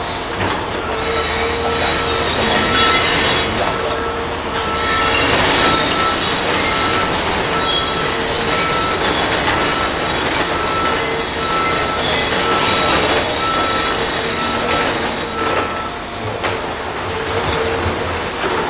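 Loud machinery noise with a short electronic warning beep repeating about every two-thirds of a second and high metallic squeals over it.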